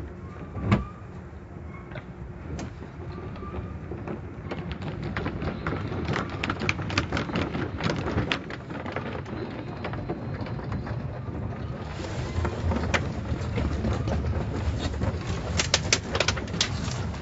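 Automatic car wash heard from inside the car: water and wash equipment beating on the body and windshield over a steady low rumble. A sharp knock comes less than a second in, and rapid irregular taps and splatters build from about four seconds in.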